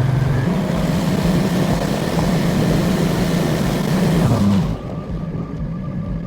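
Boat motor running under throttle while the boat is manoeuvred into its lift, steady in pitch, then throttled back sharply a little over four and a half seconds in.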